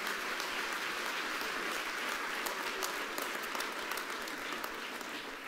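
Audience applauding steadily, the clapping slowly fading away near the end.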